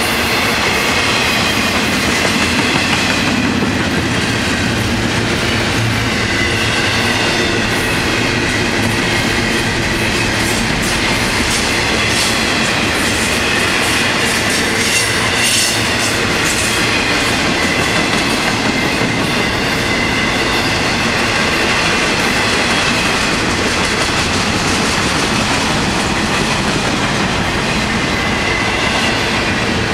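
Double-stack intermodal freight train rolling past close by: the steel wheels of the loaded well cars make a steady rumble and clatter over the rails, with faint high ringing tones above it.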